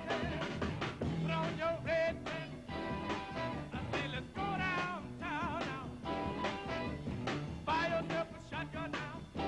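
A 1960s rhythm-and-blues band playing live, with a steady beat under a lead melody that wavers in pitch.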